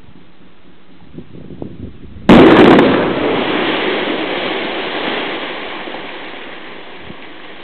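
Quarry blast in a calcitic dolomite and limestone face: a few faint pops, then a little over two seconds in a sudden loud blast that dies away slowly over several seconds as the broken rock comes down.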